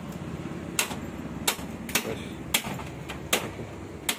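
Aluminium interlock profile knocked into place on a domal sliding window sash: six sharp metallic knocks at uneven intervals as it seats.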